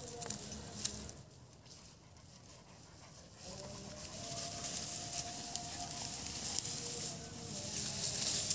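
Tall grass rustling and crackling as a person and dogs push through it, going briefly quieter about a second in. A faint steady drone runs underneath.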